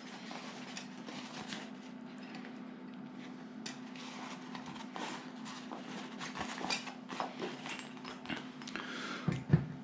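Rustling and light clicks of a small nylon carry bag being unzipped and opened and a compact camping stove pulled out of it, with a louder knock near the end as it is set down, over a faint steady hum.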